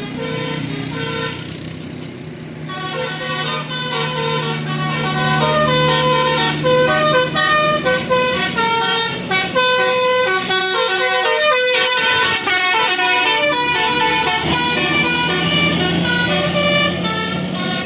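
Basuri 'telolet' musical horn on a bus playing a fast melody of short notes at shifting pitches, over the bus's steady engine.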